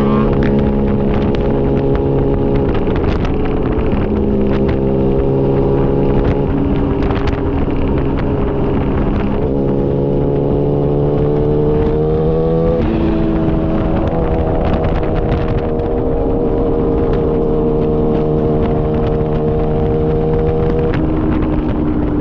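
Yamaha R6 600 cc inline-four running through an SC-Project titanium exhaust at steady high revs. Its note climbs slowly, drops sharply about halfway through as on a gear change, then holds and drops again near the end.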